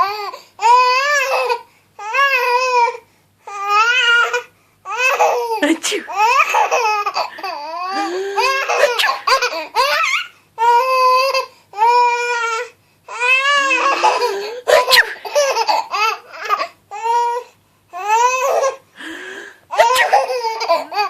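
A baby boy laughing in a long run of high-pitched bursts, each under a second or two, with short pauses for breath between.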